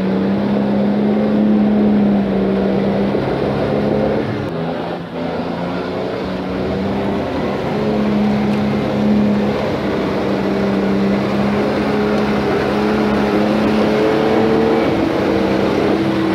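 Off-road 4x4 engine running hard under load at fairly steady revs, with a brief dip about five seconds in and the pitch creeping up near the end.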